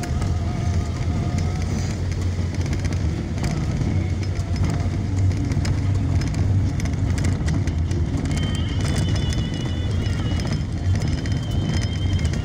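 A vehicle driving along an unpaved road: a steady low rumble of engine and tyres on dirt and gravel.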